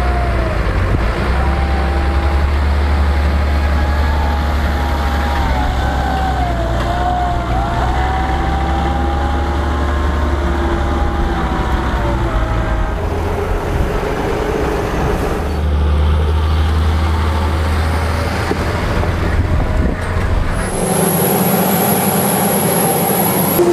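John Deere 6150R tractor running with a steady low engine hum and a wavering whine above it while it moves a Krone ZX 450 GL loader wagon across a maize silage clamp. About 21 s in, the sound changes to a forage harvester in the field, with a steady high whine over its running engine.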